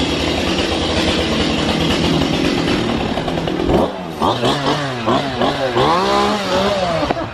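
Gasoline chainsaw running steadily. About four seconds in it is revved up and down several times, its pitch rising and falling with each blip of the throttle.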